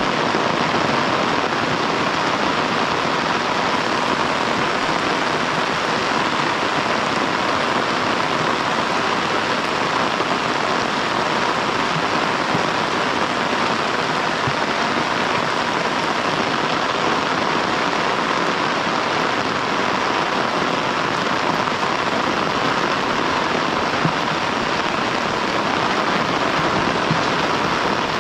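Heavy rain falling steadily, an even unbroken hiss of downpour.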